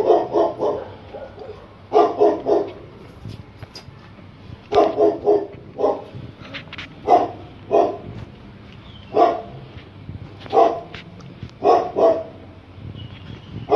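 A dog barking repeatedly: short runs of two to four quick barks, with single barks between, every second or two.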